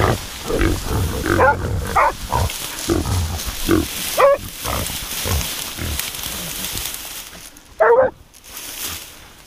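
A herd of wild boar grunting and squealing: frequent calls over the first few seconds, then sparser, with one loud squeal near the end.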